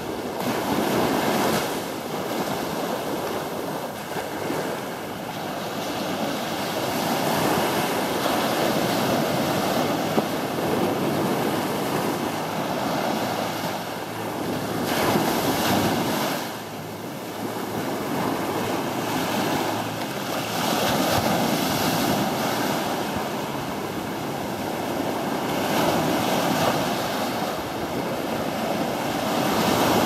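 Ocean surf washing onto a sandy beach, a steady rush that swells and ebbs every few seconds as waves break and run up the shore, with wind buffeting the microphone.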